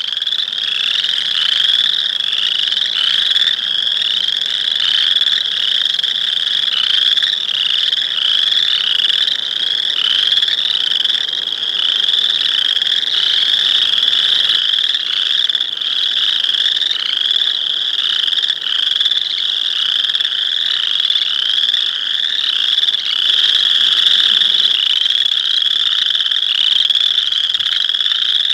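A couple of boreal chorus frogs calling loudly: short rising, creaking trills repeated over and over and overlapping into a continuous chorus.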